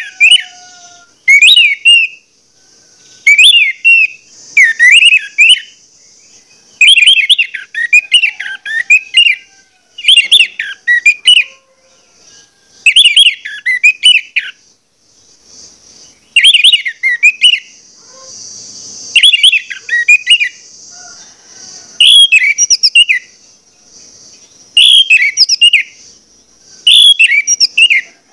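Orange-headed thrush (anis merah) singing hard: loud, short whistled phrases repeated every second or two, with brief pauses between them.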